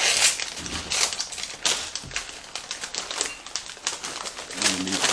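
Crinkly plastic snack bag rustling and crackling with scattered light clicks as a bag of Takis rolled tortilla chips is handled and reached into.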